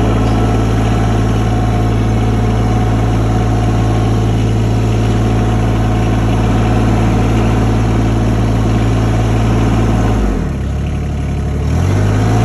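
Tractor engine running steadily; about ten seconds in its pitch and level dip for a second and a half, then come back up.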